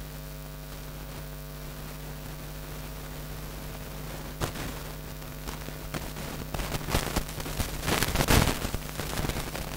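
Steady electrical mains hum. From about halfway through, chalk taps and scratches on a blackboard as digits are written, loudest near the end.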